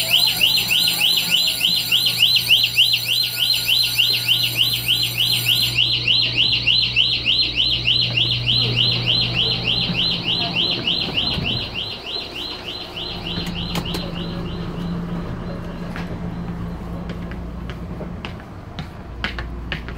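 Toilet alarm on a Puyuma Express tilting train sounding: a loud, rapid electronic warble, several pulses a second. It fades and stops about twelve seconds in, leaving the low hum of the moving carriage and a few clicks near the end.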